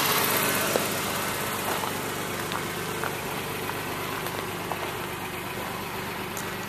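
Toyota 3VZ-E 3.0-litre V6 engine of a 1991 pickup idling steadily, growing fainter over the first two seconds and then holding at a lower level.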